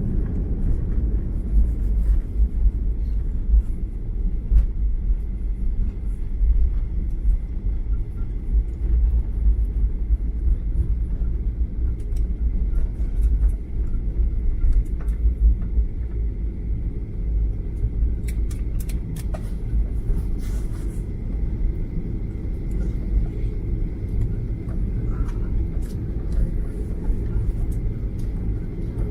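Heavy, unsteady rumble inside an airliner cabin during landing and the roll down the runway, easing slightly toward the end. A few brief clicks and rattles about two-thirds of the way through.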